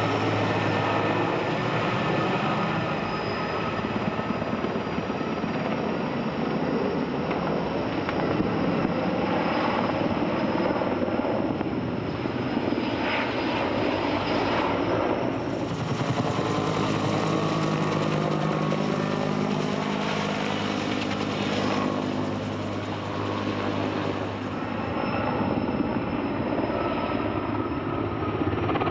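Sikorsky S-64 Skycrane heavy-lift helicopter flying low overhead, its rotors and turbine engines running steadily. The sound changes abruptly about halfway through, when a steady hum of several pitches comes in, and changes again near the end.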